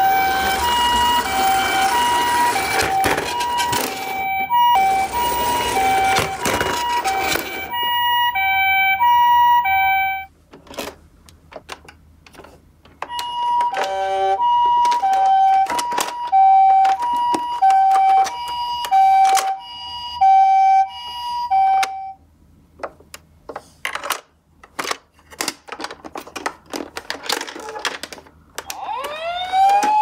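Toy ambulances' electronic sirens playing the Japanese two-tone "pi-po" ambulance call, a high and a low tone alternating about every half second, in two spells. Over the first several seconds a rushing rolling noise runs under it. Plastic clicks and knocks follow, and near the end a siren wail rises and holds.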